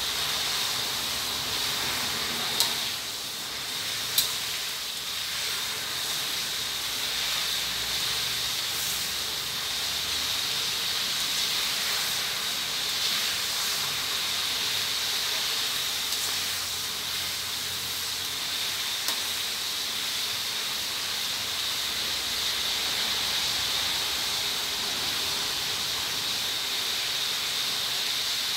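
Hot oil sizzling steadily as pieces of sun-dried beef deep-fry in a steel wok. There are two sharp clinks of the metal ladle against the wok a few seconds in, and a few fainter ones later.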